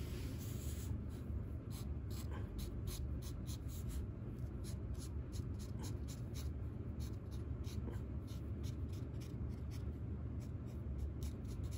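Colour marker nib scratching on sketchbook paper in quick, repeated short strokes, over a steady low hum.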